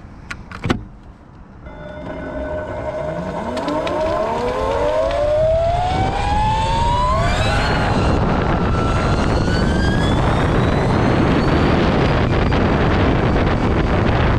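Electric go-kart's twin Castle 2028 800 kV brushless motors accelerating hard: a whine with several pitches climbs steadily for about six seconds, then a steady rushing noise takes over at speed. A couple of sharp clicks come just before it starts.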